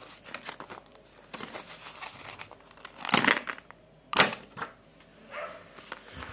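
Clear plastic packaging bag crinkling and tearing as hands open it and slide out a blister card, with many small crackles and two louder rustles about three and four seconds in.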